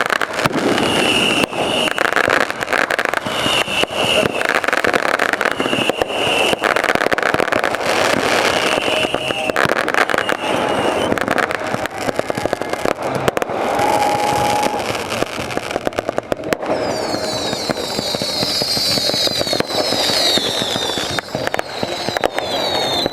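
Fireworks display: a dense, continuous barrage of bangs and crackling. Near the end come many shrill whistles sliding in pitch.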